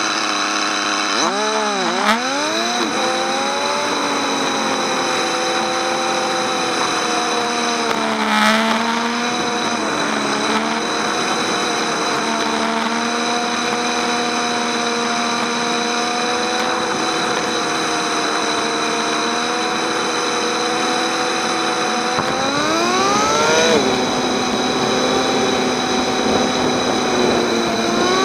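Motorcycle engine on the move, its pitch dipping and rising with throttle and gear changes near the start and again about eight seconds in. It then holds steady for a long stretch of cruising, climbs sharply while accelerating about three-quarters of the way through, and falls away near the end, with a steady hiss of wind and wet-road tyre noise under it.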